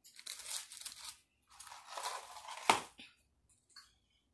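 McDonald's paper food packaging crinkling and rustling as it is handled, in two stretches, with a sharp snap near the end of the second. Then nearly silent.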